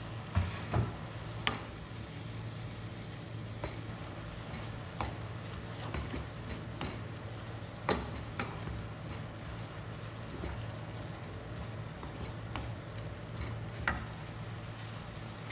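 Wooden spatula stirring and tossing noodles in a hot wok, with a steady frying sizzle and low hum and irregular sharp knocks of the spatula against the pan, the loudest two near the start.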